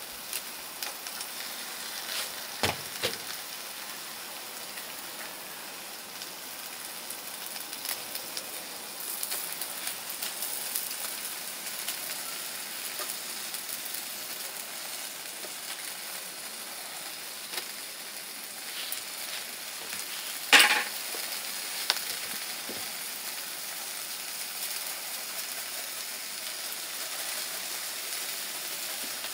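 Beef sizzling as it grills: a steady hiss, broken by a few sharp knocks, the loudest about twenty seconds in.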